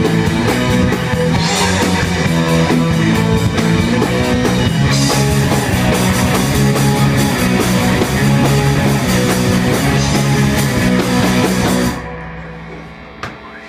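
Live rock band playing loud: distorted electric guitar, bass guitar and a drum kit with crashing cymbals. The drums stop about two seconds before the end, leaving the last chord ringing and fading out as the song ends.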